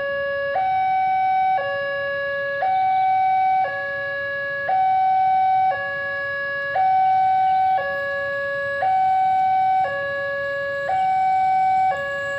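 Two-tone electronic alarm: a high and a low tone take turns, each held about a second, at a steady level.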